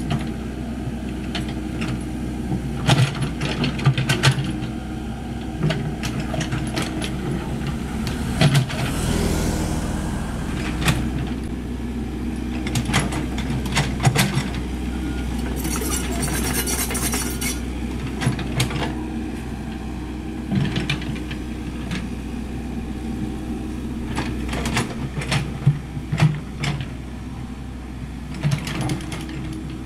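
Komatsu PC78US mini excavator's diesel engine running steadily as it digs, with repeated sharp clanks and knocks of the bucket and its linkage working the soil.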